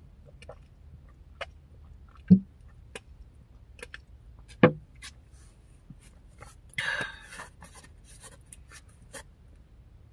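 Drinking from a plastic gallon jug: two loud gulping swallows about two and a half seconds apart, small clicks and taps of the jug and its cap being handled, and a short breath out about seven seconds in.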